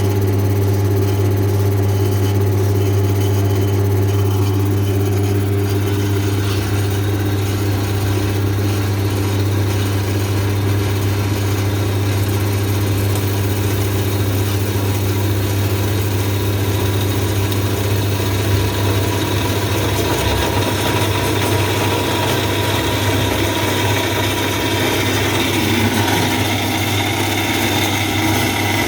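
Electric metal-cutting saw with coolant running steadily through a test cut on a pipe after its repair, with a steady low motor hum.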